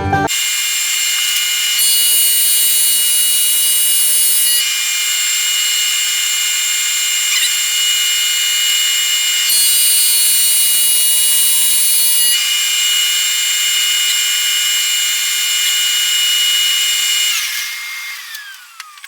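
Electric power tool motor running at a steady high-pitched whine, then winding down with falling pitch near the end as it is switched off.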